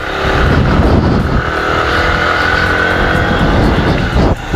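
Motorcycle engine running steadily while riding, with wind and road noise on the camera microphone; the sound drops briefly just before the end.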